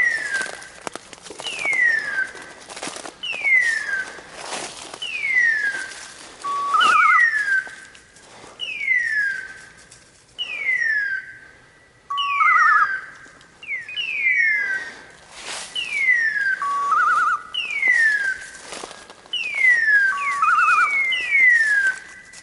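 Electronic beeper collars on pointing dogs: one sounds a falling squeal about every 1.2 seconds, the rapid repeat a beeper gives in point mode when a dog stands on point, while a second collar adds a short warbling beep every four or five seconds.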